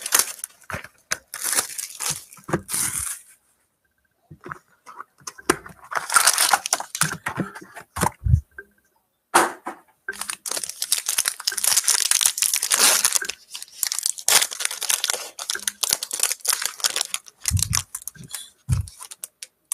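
Plastic wrapping on a box of trading cards being torn open and crumpled, in several long rustling tears with short pauses between them. A few dull thumps come near the middle and near the end.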